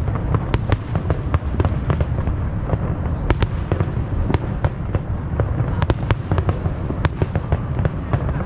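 Aerial fireworks going off in quick, irregular succession: sharp bangs and crackles, several a second, over a continuous low rumble of booms.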